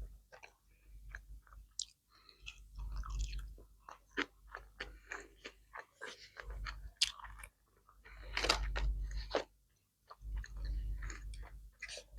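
Close-up chewing of sushi and seaweed salad: wet mouth smacks and crunchy bites, irregular and near the microphone, with a few brief pauses.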